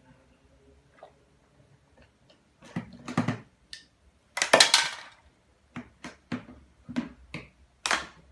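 Hard plastic toys clicking and knocking as a small child handles them at a plastic drawer unit: irregular single knocks, with a longer rattling clatter about halfway through.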